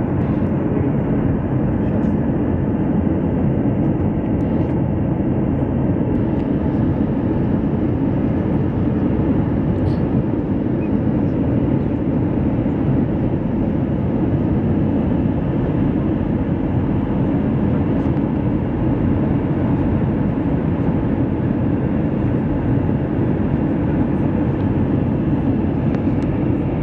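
Steady cabin noise of a jet airliner in flight, heard from a window seat beside the wing-mounted engine: an even, unchanging rush of engine and airflow sound, deepest in the low range.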